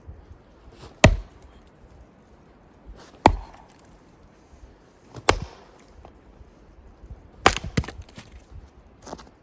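Wood being chopped: five sharp blows about two seconds apart, the fourth a quick double strike.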